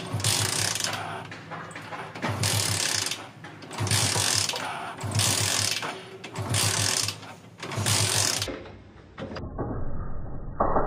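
Hero Passion Pro motorcycle's kick-start lever kicked about six times, each stroke cranking the engine over with a brief rattling, ratcheting burst, without the engine starting. It is being kicked with the drain bolt out to force the last of the old engine oil out of the crankcase.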